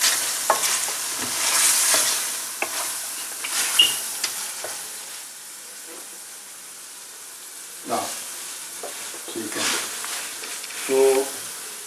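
Lamb karahi sizzling in a metal pan over a gas flame while a spatula stirs it, with scraping and knocking against the pan's sides. The stirring quietens in the middle.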